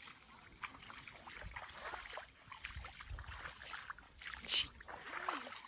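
Water sloshing and trickling, with small clicks and one short splash about four and a half seconds in.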